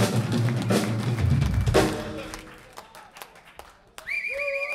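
Live rock band hitting closing accents: drum kit and cymbal crashes with bass and guitar chords, two big hits about a second apart that ring out and fade. Near the end a steady held pitched tone starts.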